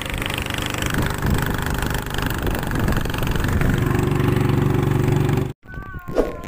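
Small open boat's engine running under way, with a steady rush of wind and water over it; it cuts off suddenly about five and a half seconds in, followed by a brief, quieter wavering tone.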